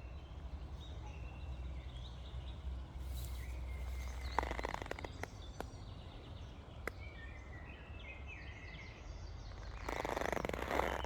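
Small forest birds chirping and singing over a low steady rumble. About four seconds in, and again near the end, come louder creaking bursts from rubber boots.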